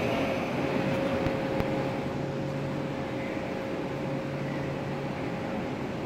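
Standing WAP7 electric locomotive, energised, its machinery humming steadily with one constant tone, while a lower hum comes and goes in stretches of about a second.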